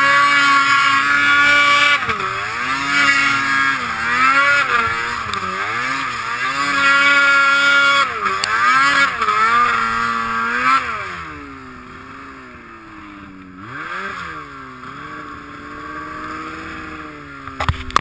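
Snowmobile engine revving up and down in repeated throttle blips under load in deep powder. About two-thirds of the way through it falls to lower, quieter revs. A sharp knock comes just before the end.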